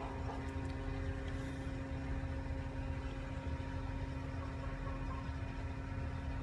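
Steady machine hum with a constant low tone over a low rumble, unchanging throughout.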